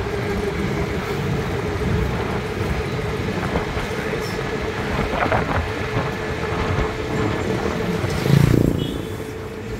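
Engine and road noise from a moving vehicle, heard from on board: a steady rumble with a constant hum, and a louder low rumble for a moment about eight seconds in.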